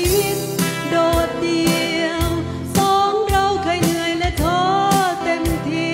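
Live song with a woman singing long held notes that waver in pitch, over strummed acoustic guitar and a steady beat.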